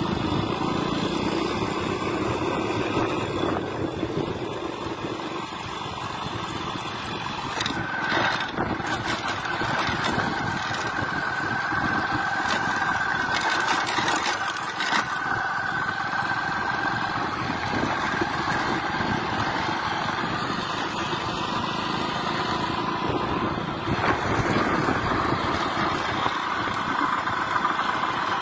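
Motorcycle engine running steadily while riding, with wind rushing over the microphone and a few brief crackles near the middle.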